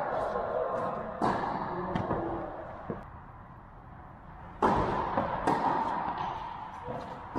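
Tennis balls struck by racquets and bouncing on an indoor court: a handful of sharp pocks, the loudest about a second in and again just before the middle, each trailing off in the hall's echo.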